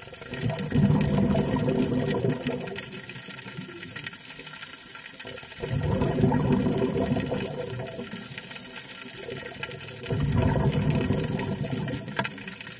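Scuba exhaust bubbles rushing from a diver's regulator, heard underwater: three bursts about five seconds apart, one per exhaled breath, over a faint steady hiss.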